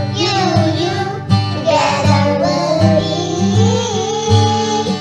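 A young children's choir singing a song together over a guitar accompaniment.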